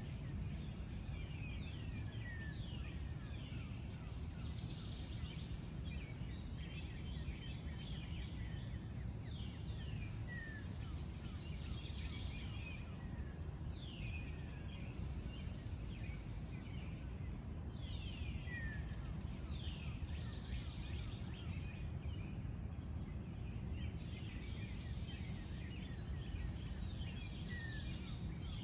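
Outdoor birdsong: birds repeating short falling calls every few seconds, over a steady high-pitched insect drone and a constant low background rumble.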